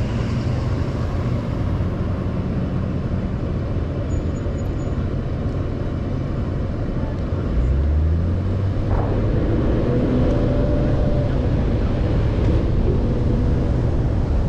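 Car waiting at a traffic light with a steady low rumble of engine and street noise; a little past halfway the engine note rises and the sound grows louder as the car pulls away.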